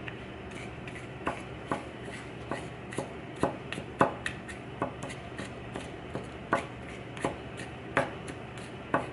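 Kitchen knife chopping garlic on a plastic cutting board: sharp knocks of the blade on the board at an uneven pace, a little under two a second.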